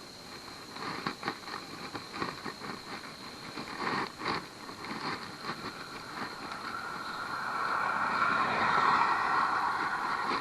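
A car passing on the road, its tyre and engine noise swelling to loudest near the end. Earlier there is a string of short clicks and rattles, and a steady high-pitched insect drone runs underneath.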